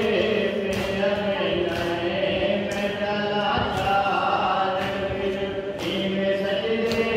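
A group of mourners chanting a Shia nauha (mourning lament) together, with sharp slaps of matam (chest-beating) keeping time about once a second.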